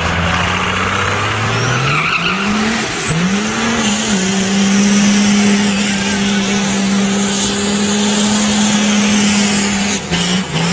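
Turbo-diesel engine of a 1928 Dodge rat rod revving up, its pitch climbing over the first few seconds, then held at high revs while the tyres spin in a burnout. The revs dip briefly near the end.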